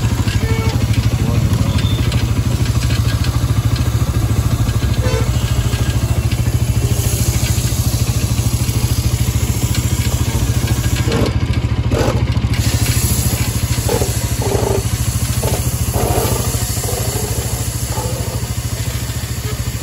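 Motorcycle single-cylinder engine idling steadily, with a few light knocks about halfway through.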